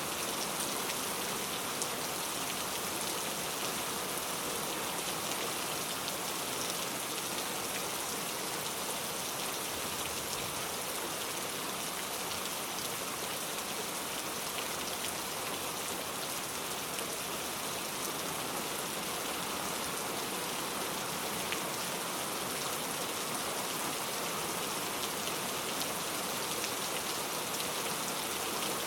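Steady heavy rain falling, a constant hiss with many small drop ticks and no change in intensity.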